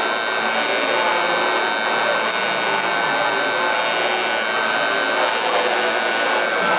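Tattoo machine buzzing steadily as its needle lines script lettering into the skin.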